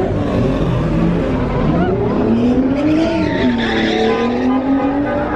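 A car doing donuts or a drift: tyres squealing and the engine note rising and falling, with voices in the crowd.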